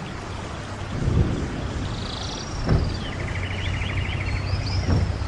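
Steady rush of a waterfall, with birds calling over it in quick trills through the middle and again near the end. A few brief low thumps break in about a second in, near the middle and near the end.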